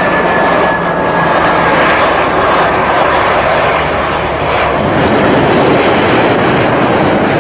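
Jet airliner's engines during a low pass, a loud steady rushing noise with a faint high whine that slides slightly down and fades out within the first few seconds.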